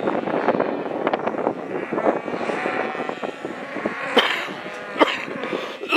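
A man coughs sharply a couple of times near the end, over a steady noisy rumble like a vehicle running.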